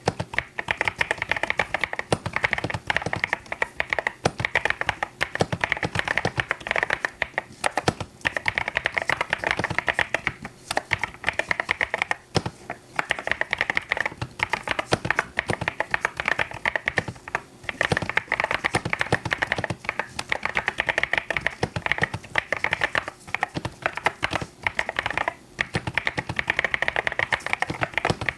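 Fast continuous typing on a mechanical keyboard: a dense run of key clacks with a few short pauses.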